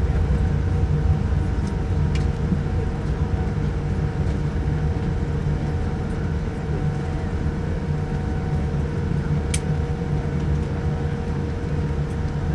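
Cabin noise of a Boeing 787-9 rolling along the ground after landing: a steady low rumble from the wheels and the idling Rolls-Royce engines, with a steady hum over it.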